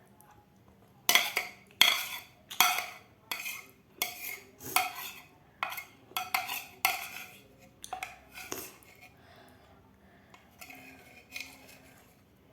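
Spoon scraping and clinking on a plate while scooping up fried rice: a run of about a dozen short strokes, each under a second apart, then a few lighter scrapes near the end.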